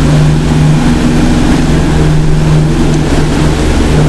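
A loud, steady droning hum with a low buzz underneath, like a motor or fan running.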